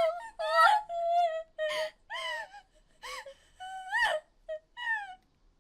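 A voice acting out crying: a string of short, high-pitched wailing sobs and whimpers, each rising and falling in pitch, with catches of breath between them.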